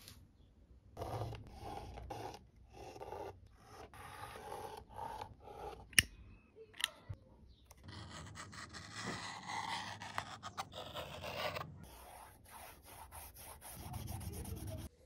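Hands rubbing and scraping stitched leather of a knife sheath, in stretches of a second or two, with quick repeated strokes near the end. A single sharp click about six seconds in.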